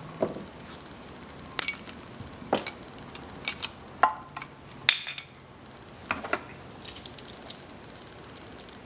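Scattered light clicks, taps and rattles of a spark plug wire and ignition coil being handled and fitted against a Honda CR125 engine, a dozen or so at irregular intervals with short pauses between.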